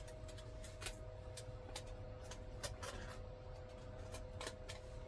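Scattered light clicks and crinkling from hand work as a small patch piece is handled, over a faint steady hum.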